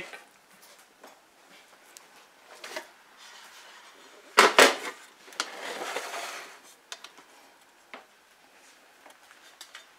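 A metal fluted cake pan and plate knock twice against the countertop as the cake is flipped, about four and a half seconds in. A brief scraping rustle follows, with a few faint handling clicks around it.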